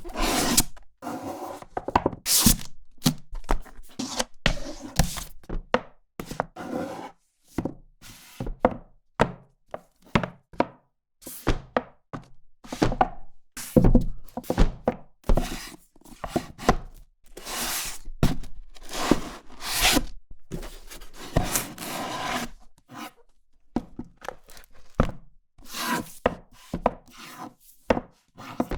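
A book being handled: paper pages turning and flipping in short rustles and swishes, one after another at irregular intervals, with a few louder thuds of the book.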